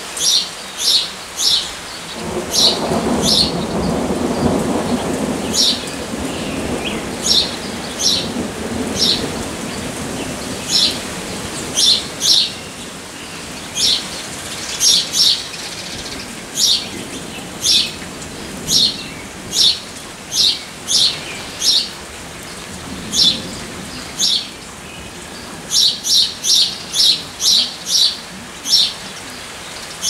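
A small bird chirps over and over, short high chirps about one or two a second, over steady rain. A low rumble of thunder swells a couple of seconds in and fades, with a fainter rumble later.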